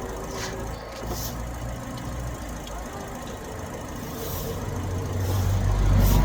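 Car engine idling steadily, growing louder over the last couple of seconds. It is running on a replacement battery after failing to start, which the owner takes as proof that the battery was the only problem.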